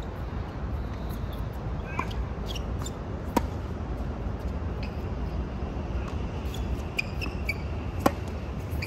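Tennis ball being hit back and forth in a rally, a sharp pock of racket on ball every second or two; the loudest hit, near the end, is the near player's forehand.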